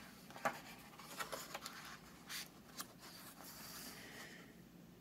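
Faint paper-handling sounds as a picture book's page is turned: a few soft taps and crinkles, then a longer paper rustle about three seconds in.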